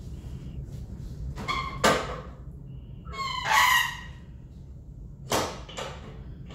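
Hinged side shelf of a metal clinical trolley being raised into place: a sharp click about two seconds in, a squeak about a second later, and two more clicks near the end.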